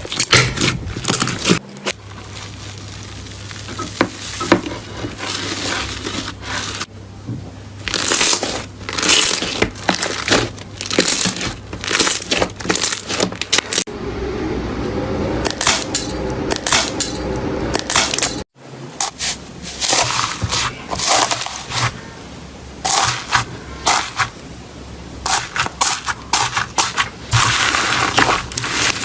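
Slime being squeezed and pressed by hand, giving a dense, irregular run of sharp crackling and popping clicks. The sound changes abruptly a few times where one clip cuts to the next.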